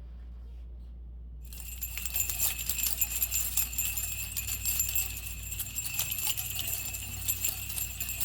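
Sleigh bells jingling in a rapid, continuous shake, starting about a second and a half in.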